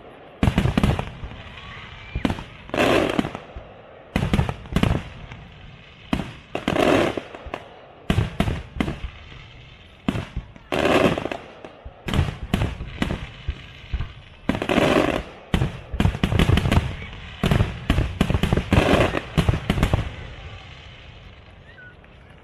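Fireworks display: aerial shells bursting in a rapid, loud run of bangs, the biggest every second or two, with crackling in between. The bursts stop shortly before the end.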